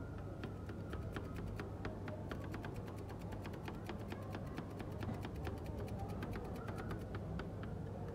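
Two metal spatulas tapping rapidly on a frozen steel ice-cream pan as Oreo pieces are chopped into the cream base: a fast run of sharp clicks, several a second, starting about half a second in and stopping near the end, over a steady low hum.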